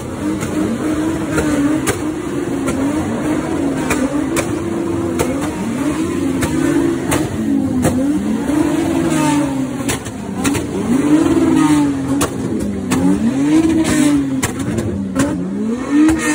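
Car engine revved up and down over and over, its pitch climbing and dropping about once every second or so, with sharp pops in between.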